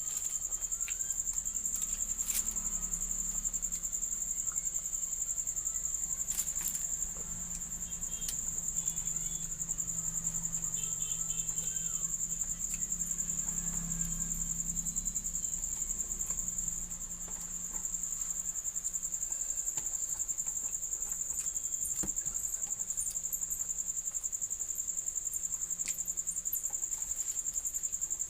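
Continuous high-pitched insect trill, like crickets, with a few faint sharp clicks.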